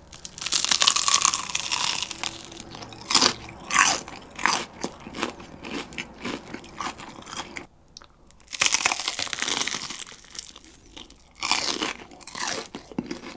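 Close-up chewing of very crispy Kyochon rice fried chicken, with loud crunching of the crust. Two long runs of dense crunching, one near the start and one after a brief pause around the middle, have single crunches and chewing in between.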